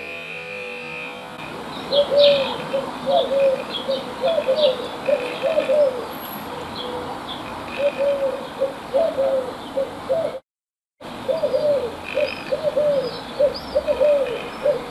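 Eurasian collared doves cooing over and over in short, low, rounded calls, with small birds chirping higher above them. Background music fades out in the first second, and the sound cuts out completely for about half a second a little past the middle.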